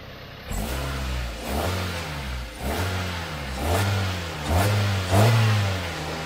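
Mazda four-cylinder engine revved by hand at the throttle, about six quick blips roughly a second apart, each rising and falling back toward idle, the later ones louder. The engine has lost about half its power and makes a horrible exhaust noise, which the owner puts down to a catalytic converter that has come apart and is blocking the exhaust.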